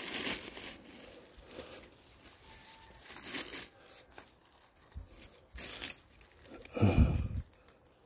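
Hands digging and scraping through loose soil and dry fallen leaves, in scattered rustling, crackling scrapes, with a louder low thump about seven seconds in.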